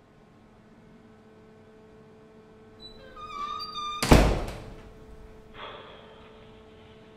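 A heavy restroom door squeaks on its hinges and then bangs shut with a loud thud that rings briefly off the tiled walls, about four seconds in. Paper rustles afterwards.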